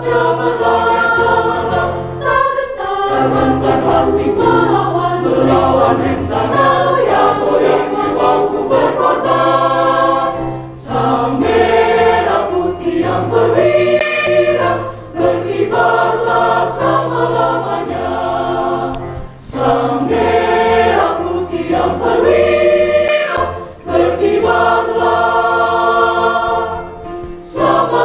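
Mixed choir of women's and men's voices singing together, in phrases with brief breaks between them.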